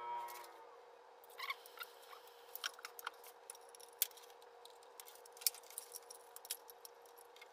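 Scattered sharp clicks and light rattles of an LS engine's fuel-injector wiring sub-harness being handled and its plastic connectors pressed onto the injectors, over a steady hum.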